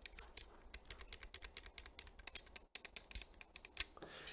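Side buttons of an XPG Slingshot gaming mouse clicked over and over, a fast run of sharp, crisp clicks broken by short pauses.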